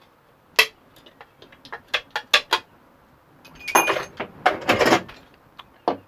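Steel breaker-panel cover plate being worked with channel-lock pliers to snap out its blank knockout: sharp metallic clicks and clinks, then a longer scraping rattle of the sheet metal about two thirds of the way in.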